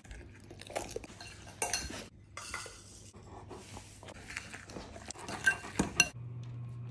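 Metal spoon stirring cookie dough in a glass mixing bowl, clinking and scraping against the sides in an irregular clatter, with a few sharper clinks near the end.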